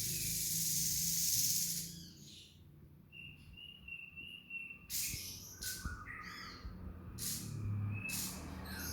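Grey-headed babbler singing: a harsh, buzzing rattle like a sewing machine for about two seconds, then a steady high whistled trill, then short chirps broken by brief harsh rasps.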